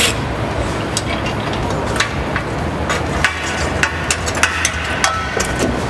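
Scattered metallic clicks and knocks from hand tools and the steel lower intercooler support brace as its bolts come out and the brace is taken down, over a steady low hum.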